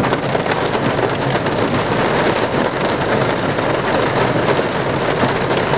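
Pea-sized hail falling with rain in a steady, dense patter of many small ticks.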